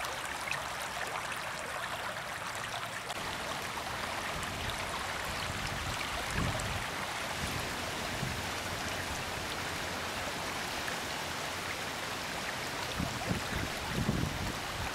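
Shallow stream running and splashing over rocks, a steady rushing sound, with a few low buffets of wind on the microphone about six seconds in and again near the end.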